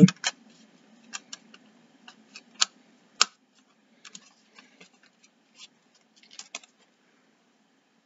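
Scattered small clicks and light handling noises from a plastic CD case being opened and handled, with one sharper click about three seconds in.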